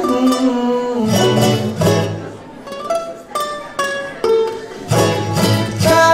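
Music accompanying the dance: plucked string instruments over a steady beat, with a sliding melody line that bends up and down.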